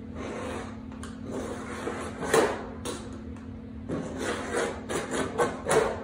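Screwdriver tip scratching a line into sheet metal along a straightedge, scribing corner to corner: scraping strokes, one about two seconds in and several short ones in quick succession over the last two seconds.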